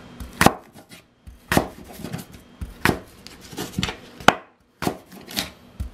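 Chef's knife chopping rhubarb stalks on a plastic cutting board, a sharp knock of the blade on the board with each cut, about one cut a second, with a brief pause about two-thirds of the way through.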